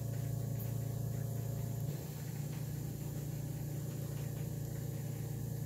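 Steady low machine hum with faint higher overtones, dipping slightly in level about two seconds in.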